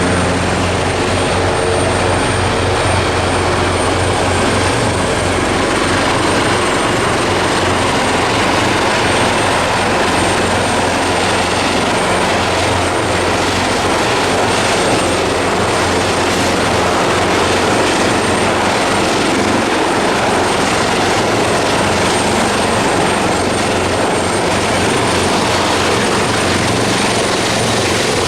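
Airbus EC225LP Super Puma twin-turbine helicopter running steadily, a thin high turbine whine over the constant low beat and rush of the rotors.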